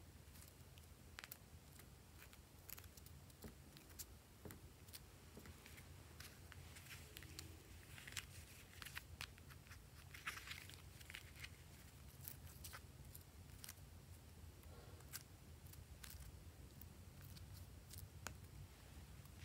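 Faint handling of hard plastic seashell-shaped compact cases: scattered light clicks and taps, with a brief crinkly rustle near the middle.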